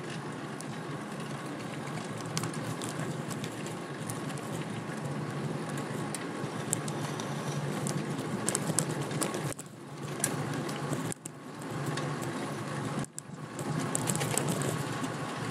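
Steady rushing road and wind noise from a fixed-gear bicycle ride, with scattered small clicks. The sound drops out briefly three times in the second half.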